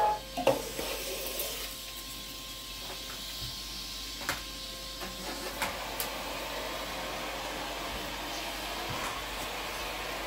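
Vacmaster 2.5-gallon, 2-peak-horsepower shop vac running steadily while vacuuming a hardwood floor, with a few sharp clicks and knocks from the hose and nozzle.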